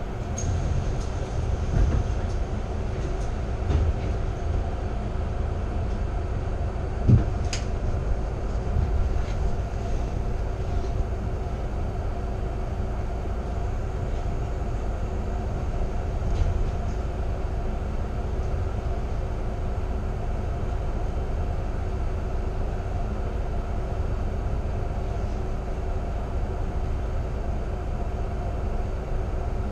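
Steady low rumble and hum of a bus's diesel engine idling while the bus stands still, heard from inside the cabin, with a single sharp knock about seven seconds in.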